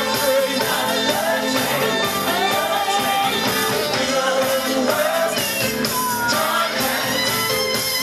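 Live band performing: a man sings lead over drums and saxophone, with a steady beat of about two drum hits a second.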